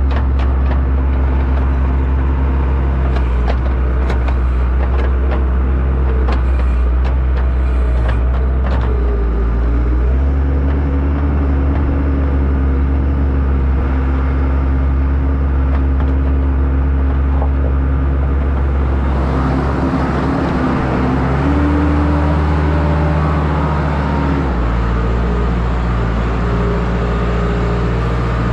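Farm loader's engine running under load, its speed shifting up and down several times, with scattered knocks and rattles in the first several seconds.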